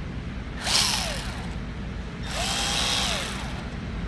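Milwaukee M12 1/4-inch cordless ratchet's motor run in two short trigger pulls, each spinning up, holding and winding down. The head turns but has no power under load, a fault in the ratchet head's anvil.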